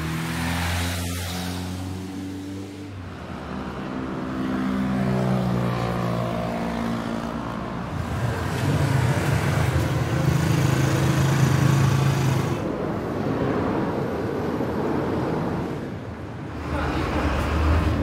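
Urban street traffic: motor vehicle engines running and passing, one engine's pitch rising and then falling, over a steady wash of road noise. The ambience changes abruptly several times as one street recording gives way to the next.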